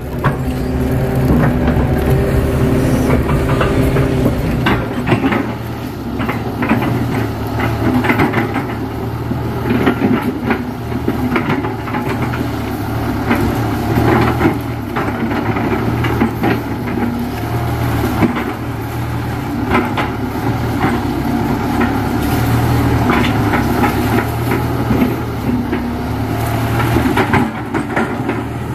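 Kato tracked excavator's diesel engine running under working load, its pitch rising and falling as the hydraulics work, with frequent clanks and knocks from the bucket and boom.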